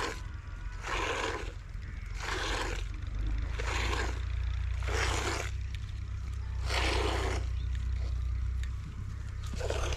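Cow being milked by hand into a metal pail: a squirt of milk hisses into the pail about every one to two seconds, with a longer pause near the end. A steady low rumble runs underneath.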